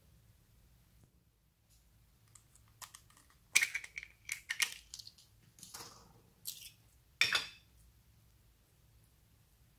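Clear slime being worked by hand, giving a run of sharp clicks and crackling pops, with a longer crackle about seven seconds in.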